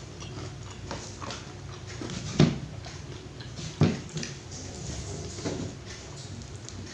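A person chewing food close to the microphone, with small wet mouth clicks, and two sharp louder knocks in the middle, a bit over a second apart.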